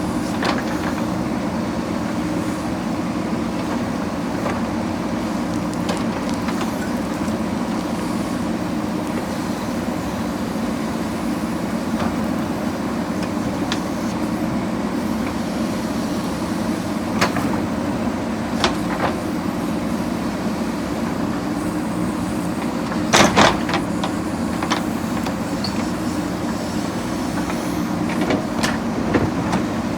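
Diesel engine of a JCB backhoe loader running steadily under work. Scattered sharp knocks fall over it, loudest as a short cluster about two-thirds of the way through.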